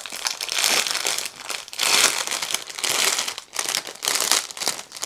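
Small plastic bag of diamond-painting drills crinkling and rustling unevenly as fingers work it open.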